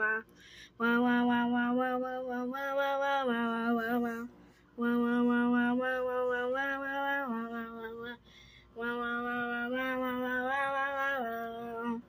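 A voice singing or intoning long held notes without words, in three drawn-out phrases of a few seconds each with short breath pauses between them, the pitch mostly steady with small steps near the end of each phrase.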